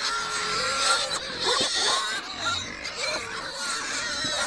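A crowd of pigs squealing and grunting as they jostle together over chicken carcasses thrown to them to eat, short wavering squeals over a steady din.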